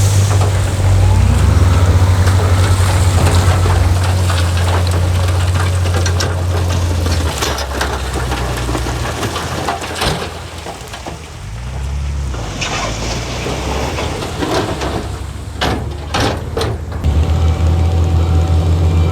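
Heavy diesel engine of earthmoving machinery running steadily, dropping back after about seven seconds and coming back strong near the end, with a few sharp knocks in the middle and a quick run of them shortly before it returns.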